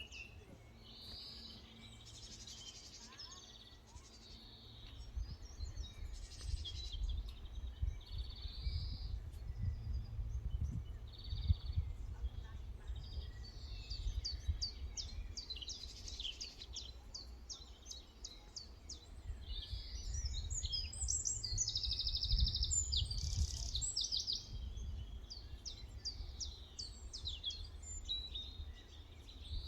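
Small wild songbirds chirping and calling, in many short notes and trills that grow busier partway through, with a dense trill a little after the middle. A low rumble runs underneath.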